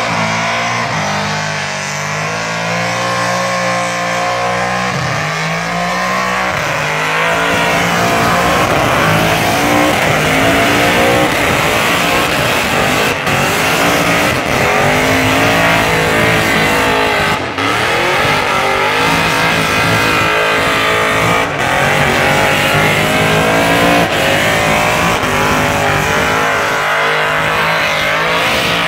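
A burnout car's engine revved hard and held high, its pitch swinging up and down, over the screech of its rear tyres spinning on the track.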